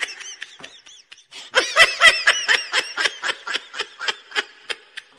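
High-pitched giggling laughter: a quick run of short repeated laughs, about four or five a second, faint at first and louder from about a second and a half in.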